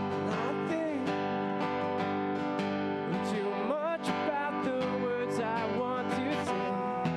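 A man singing into a microphone while strumming an acoustic guitar, a live solo song with a wavering sung melody over steady chords.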